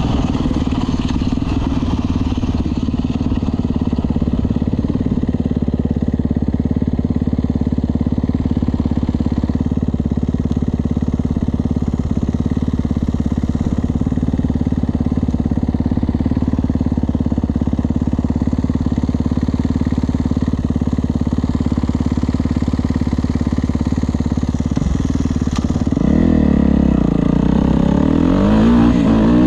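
Kawasaki KX450F motocross bike's single-cylinder four-stroke engine running at a steady pitch, then revving up and down from about 26 seconds in.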